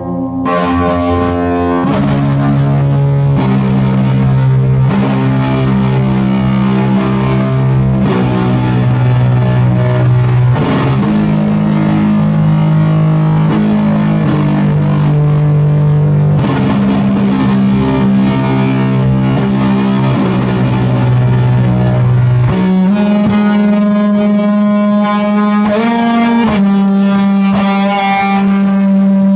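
Electric guitar played through a Bridge City Sound Burnside overdrive pedal into Hovercraft Dwarvenaut tube amp heads, with an overdriven, distorted tone. Held chords change every second or two, then it moves to higher lead notes with a bend about 26 seconds in.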